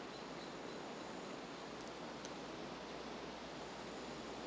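Faint, steady outdoor ambience: an even hiss of wind through trees, with two tiny high clicks about two seconds in.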